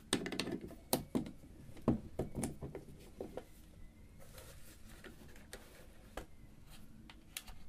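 Small metal clicks and knocks from an old Leica-style rangefinder camera as its removable bottom plate is pressed back on and closed and the body is handled. A quick flurry of clicks comes in the first few seconds, then only a few scattered ones.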